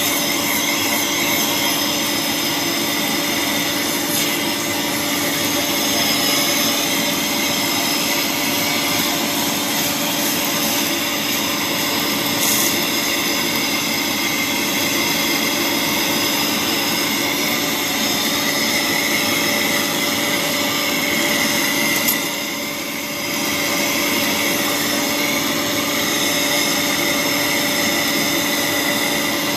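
Polygon pole welding machine running: a steady hiss and hum with a few steady tones, dipping briefly about 22 seconds in.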